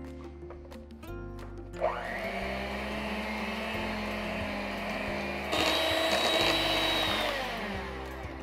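Electric hand mixer beating sugar into sponge-cake batter: the motor starts with a rising whine about two seconds in and runs steadily, gets louder and higher-pitched a little past halfway, then winds down near the end. Background music underneath.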